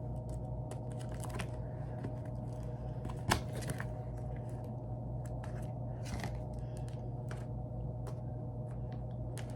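Light handling noise: scattered soft clicks and rustles, with one sharper click about three seconds in, over a steady low hum.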